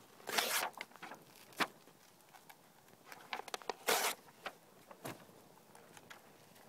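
Fire crackling as a book burns: irregular sharp pops and snaps, with two longer, louder bursts of crackle about half a second in and about four seconds in.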